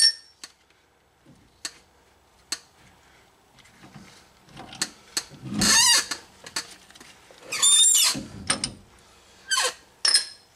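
Metal parts of a Dodge 9 1/4 rear axle squealing and clicking as they are worked loose by hand: a few sharp clicks, then several loud, wavering squeals, the longest about halfway through and another two seconds later.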